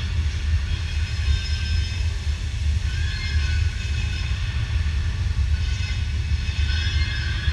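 A steady, deep rumble from the show's loudspeaker soundtrack, with faint high sustained tones above it.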